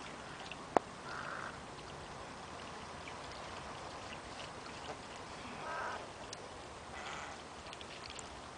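Soft, intermittent splashing of shallow pond water as a flock of snowy egrets, great egrets and white ibises wade and jab at catfish larvae, with a sharp click about a second in.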